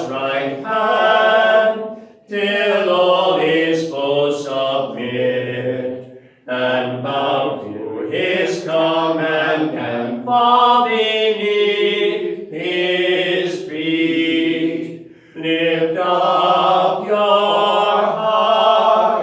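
Voices singing a sung part of the service in long phrases, with short breaks about 2, 6 and 15 seconds in.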